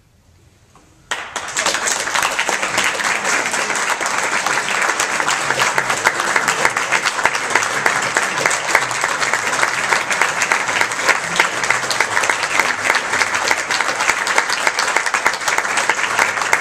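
Audience applauding, starting suddenly about a second in after a moment of quiet and then holding a loud, steady clatter of many hands clapping.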